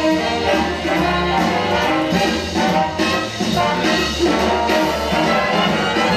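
Instrumental passage of a live band song, with a brass section of trumpets and trombones playing over bass.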